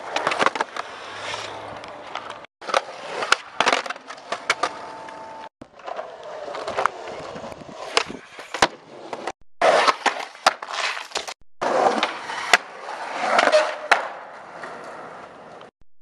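Skateboard wheels rolling on concrete, punctuated by sharp clacks of tail pops and board landings. The sound comes in several short stretches that cut off abruptly and restart.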